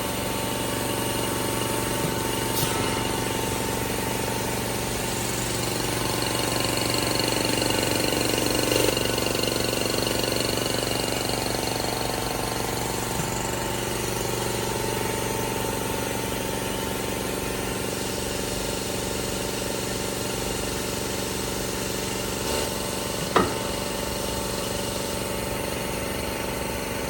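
IMV VCH 350 semi-automatic cold circular saw for metal running, its motor and gear drive giving a steady hum with several steady tones. A few short sharp clicks sound over it, the loudest about 23 seconds in.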